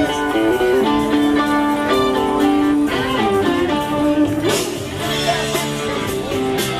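Music with a guitar playing a line of changing notes.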